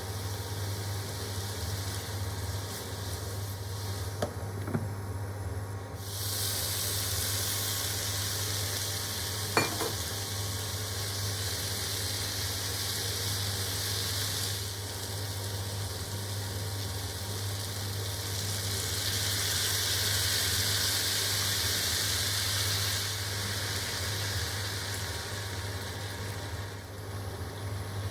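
Vegetables sizzling and being stirred in a hot pan. The sizzle swells about six seconds in, eases, then rises again later, with a few sharp clicks. A steady low hum runs underneath.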